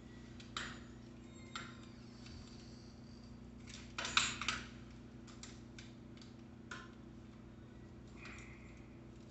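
Light clicks and rattles from bicycle parts being handled during assembly, with a cluster of louder clatter about four seconds in and a short scrape near the end, over a steady low hum.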